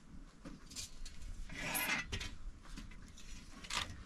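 Scraping, rubbing and light knocking of wood and utensils being handled at an open wood fire, with a longer scrape about one and a half seconds in and scattered sharp clicks.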